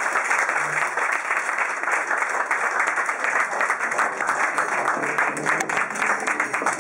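A roomful of people applauding, a dense, steady clatter of many hands clapping.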